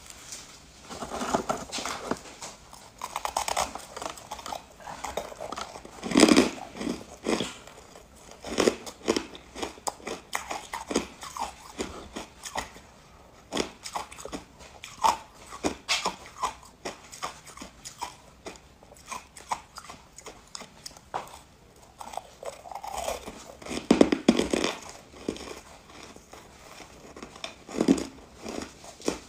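Bites and chewing of frozen ice chunks coated in buckwheat crumbs: sharp crunches and crackling as the ice breaks between the teeth, in irregular clusters, loudest about six seconds in and again near the end.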